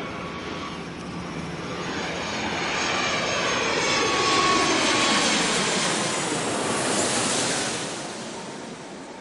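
Airplane passing low overhead on its landing approach. The engine roar and whine swell to a peak about halfway through, then fade as the pitch falls.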